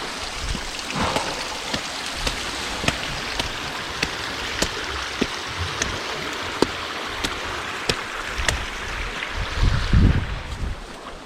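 Stream or small waterfall rushing steadily, with sharp light footsteps about twice a second as someone climbs stairs beside it. A low thump near the end.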